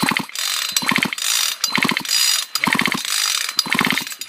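Husqvarna chainsaw's recoil starter pulled again and again, about once a second, spinning the engine with its spark plug out for a spark test; each pull is a quick run of ratcheting clicks.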